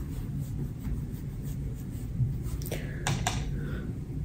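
A few soft clicks and taps about three seconds in, from a makeup brush being handled and swept over the face, over a low steady room hum.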